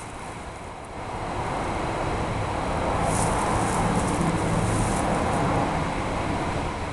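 A vehicle going by: a broad road rumble that swells over a few seconds and then fades.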